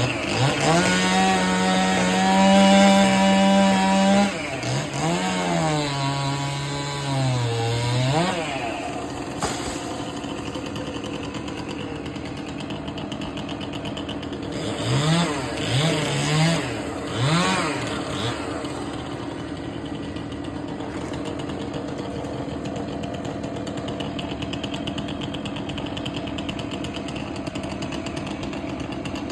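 Two-stroke chainsaw held at full throttle for a few seconds, then dropping and rising in speed as it loads up in a cut. About halfway through come a few short revs, and the saw then runs on steadily and more quietly.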